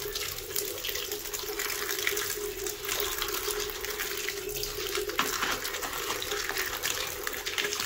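Tap water running and splashing onto cut potatoes, tomatoes and an onion in a plastic basket as a hand rubs and turns them clean, with small knocks and clatters of the vegetables and a steady hum under the flow.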